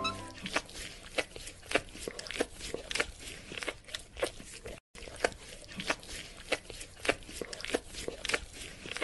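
Puppy biting and chewing a slice of watermelon: a quick run of wet, crunchy bites and mouth clicks, about three a second, broken by a very short gap a little before the middle.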